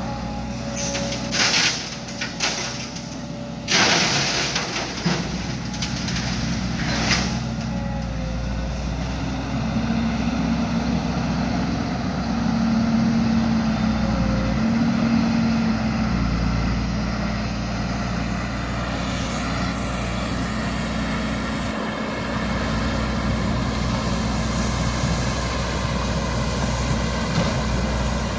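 Heavy diesel engines of an excavator and a sand truck running steadily during loading. There are several short hisses of air in the first seven seconds, and the engine pitch rises and holds for a few seconds midway as the machine works under load.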